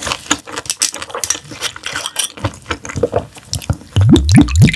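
Close-miked wet chewing and mouth clicks of someone eating gizzard shad. Near the end comes a run of low sounds rising in pitch, about three a second.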